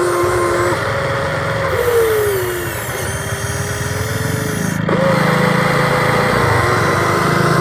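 Whine of an RC excavator's electric motor and hydraulic pump working under load, a steady tone whose pitch sags and recovers as the machine strains, with a brief break about five seconds in.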